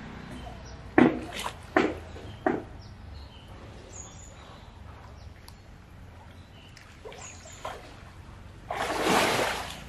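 Water splashing as a tusker elephant moves in a shallow pool: a few short splashes in the first seconds and a longer, louder rush of water near the end. Small birds chirp faintly.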